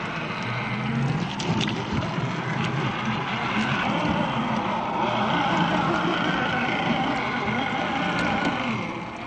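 Radio-controlled 6x6 scale truck driving through mud: its electric motor and gearbox whine steadily as the tyres churn. It gets louder past the middle and eases off near the end.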